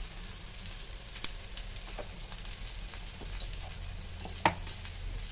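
Ground urad dal paste and cumin seeds frying in hot oil on a nonstick tawa: a steady sizzle with scattered small crackles, and one sharp click about four and a half seconds in.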